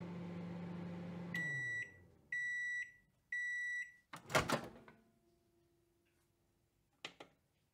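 Microwave oven running with a steady hum that winds down as it stops, then three high beeps about a second apart signalling that the cooking time is done. A loud burst of noise follows, then a faint tone and two short clicks near the end.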